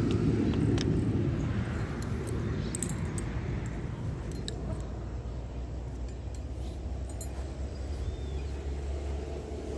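A low, steady rumble with a few light clicks and clinks as fishing rods and reels are handled and set in bank rod holders. The rumble is loudest at the start and then eases off.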